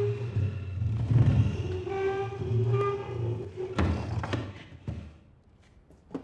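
Heavy high-backed wooden chair dragged across the floor, its legs scraping with a pitched screech and a deep rumble in stops and starts. About four seconds in it gives three knocks as it is shoved and bumped.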